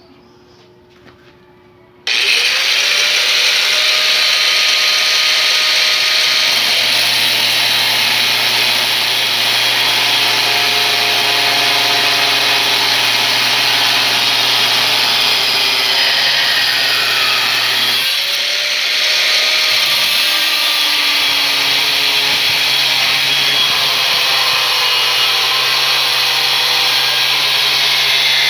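A Worksite angle grinder switches on about two seconds in and runs loud and steady at full speed. It dips briefly about two-thirds of the way through and spins back up.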